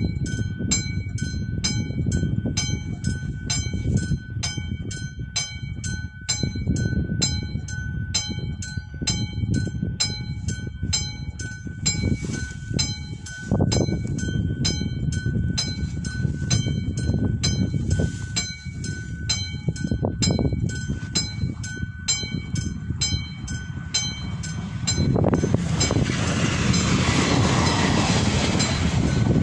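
Mechanical bell of an AŽD 71 level crossing ringing steadily, about two strikes a second, while the crossing is closed. About 25 seconds in, an approaching train's rumble and wheel noise rise and drown out the bell as the railcar reaches the crossing.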